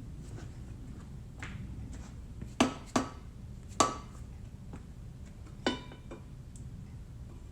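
Four sharp metallic clinks with a brief ring, two close together, a third a moment later and a fourth near the end, over a steady low hum: small metal rotary-engine parts or tools being handled and set down during a teardown.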